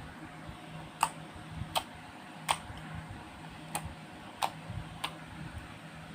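Slime being squished and worked by hand, giving about six sharp pops and clicks at uneven intervals over a faint low hum.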